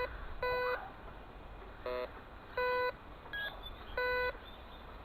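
Metal detector giving target tones as the coil is swept back and forth: about five short beeps in a row. Four are an even mid-pitched tone and one, about two seconds in, is shorter and different in pitch.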